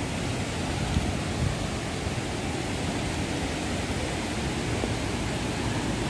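Steady rushing roar of a waterfall heard through the trees, an even noise with no rhythm, with a couple of faint knocks about a second in.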